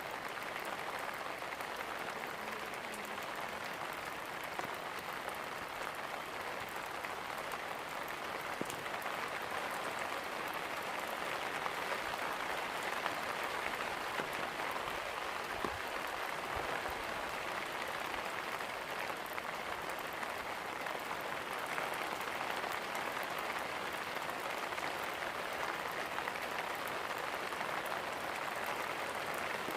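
Steady rain, an even hiss of many drops with a few separate drop clicks standing out now and then.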